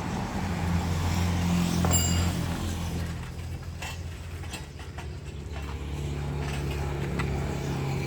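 An engine running steadily at a low idle, with a few light knocks and clicks over it.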